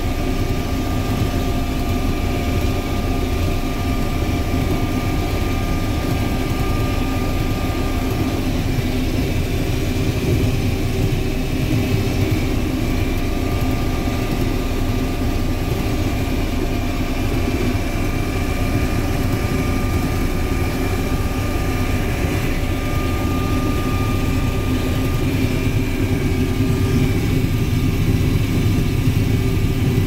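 Case IH 1680 combine running steadily while picking up and threshing a wheat windrow: a continuous diesel engine and machinery drone heard inside the cab, with a thin high whine that fades in and out.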